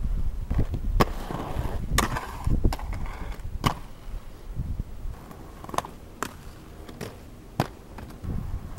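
Inline skate wheels rolling on concrete, with a series of sharp clacks and knocks as the skates strike the ground and ramps. The rolling and the knocks are louder in the first half and quieter after about four seconds.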